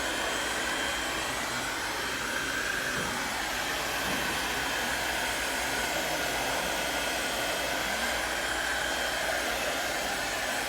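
Handheld hot-air blower running steadily, its fan noise with a faint wavering whine, as it heats wallpaper to soften it over a trapped air bubble.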